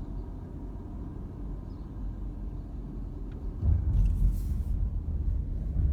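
Car driving along a city street: steady low road and engine rumble, which swells clearly louder about two-thirds of the way in.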